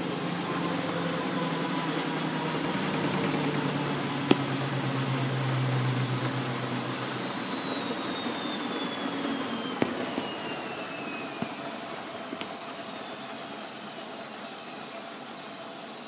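Bosch WFF2000 washing machine's drum coasting down after a 1,000 rpm spin, its motor whine falling steadily in pitch and fading. A low hum stops about seven seconds in, and there are a few small clicks.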